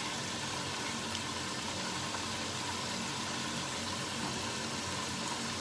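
Pot of tinola chicken soup boiling steadily, an even bubbling noise over a faint steady low hum.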